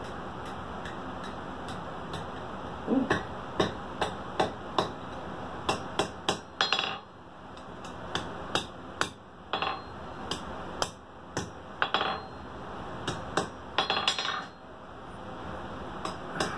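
Hammer blows on a steel anvil as hot fork stock is wrapped around its loop. The strikes are sharp and irregular, come in short runs and sometimes ring briefly, over a steady background hiss.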